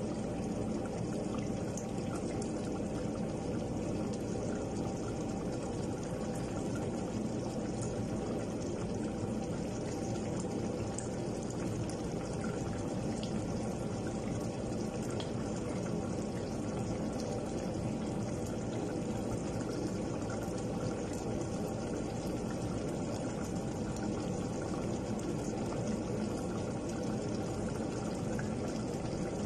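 Thick red stew bubbling steadily at the boil in a stainless steel pot.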